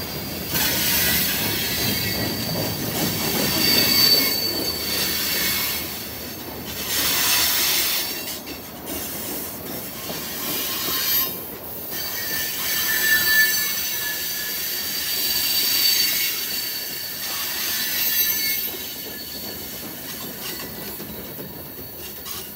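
Freight cars rolling past on the rails, their steel wheels squealing in high, steady tones that come and go over the running noise of the wheels. The sound eases off near the end.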